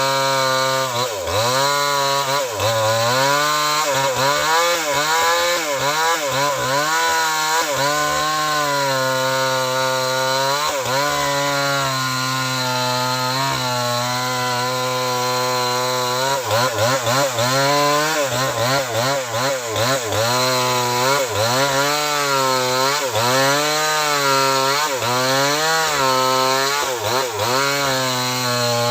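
Small two-stroke chainsaw cutting into a very large tree, its engine pitch dipping under load and picking back up again and again.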